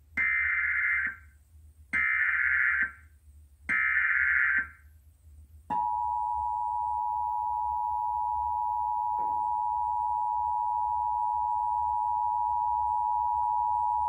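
Emergency Alert System tones played through a TV set's speaker: three one-second bursts of buzzing digital data (the SAME header) about two seconds apart, then the steady two-pitch attention signal held for about eight seconds before it cuts off. Together they open a test tornado warning.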